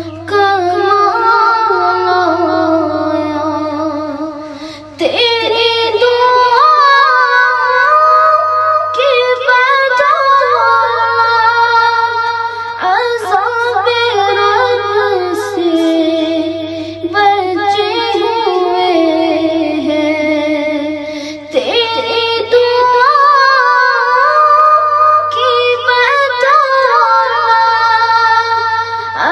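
A boy singing a naat (Urdu devotional poem) solo, drawing out long ornamented notes in phrases of several seconds, over a steady low hum.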